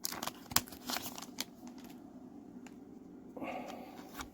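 Pokémon booster pack's foil wrapper crinkling and trading cards being handled, with a run of sharp crackles in the first second and a half, then quieter.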